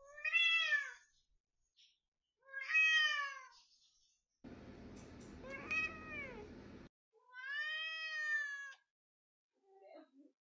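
Cat meowing: four long meows about two seconds apart, each rising then falling in pitch, and a faint short one near the end.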